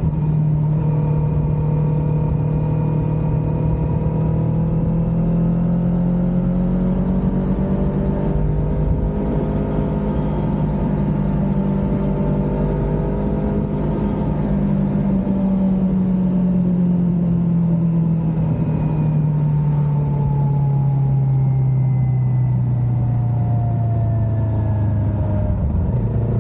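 Kawasaki Ninja 400's parallel-twin engine running under way at a steady cruise, its note wavering and then sinking slowly over the last ten seconds, over a low rush of wind and road noise.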